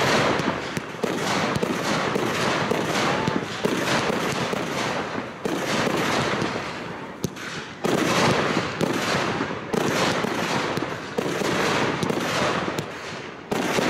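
Aerial fireworks shells bursting in a professional display, a dense run of rapid bangs and crackling. Fresh volleys come in abruptly about every two seconds.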